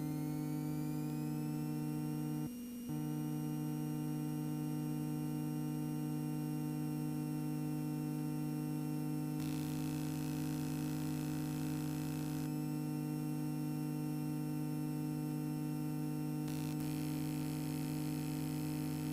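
Extra EA-200's four-cylinder Lycoming engine running on the ground during warm-up and engine checks, heard as a steady droning hum. Its pitch rises slightly and then holds steady about two seconds in, and a hiss comes and goes twice in the second half.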